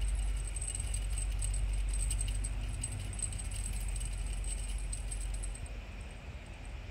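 A feather wand cat toy with beads on its string, jingling and rattling faintly as it is waved and batted about, with a low rumble underneath.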